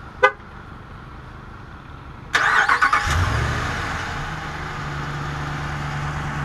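A short horn chirp, then the 5.7-litre Hemi V8 of a Ram 1500 pickup is remote-started: the starter cranks briefly about two and a half seconds in, the engine catches with a short rev, and it settles into a steady idle with a deep growl.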